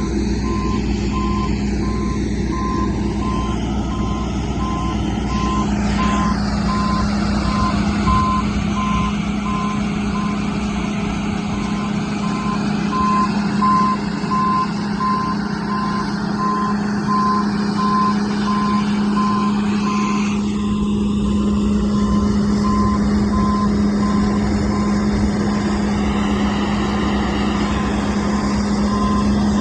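Large farm machine engine running steadily, with a warning or back-up beeper sounding about twice a second. The beeping stops about two-thirds of the way through and starts again near the end.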